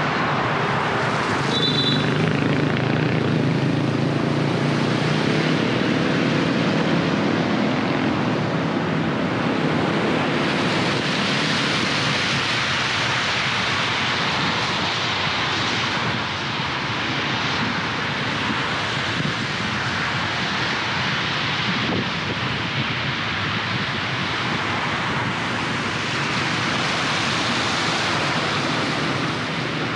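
Street traffic heard while driving on wet roads: the steady drone of a vehicle engine for the first several seconds, then a loud, even hiss of tyres on wet asphalt. A short high double beep sounds about two seconds in.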